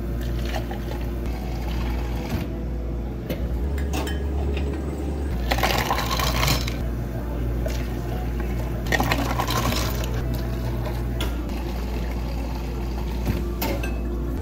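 Water poured over ice into plastic cups for iced Americanos, several pours one after another, with ice crackling. A steady low hum runs underneath.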